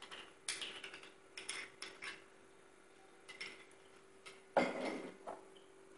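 Light clicks and taps of kitchen utensils against glassware while a milkshake glass is being garnished, with a louder knock about four and a half seconds in.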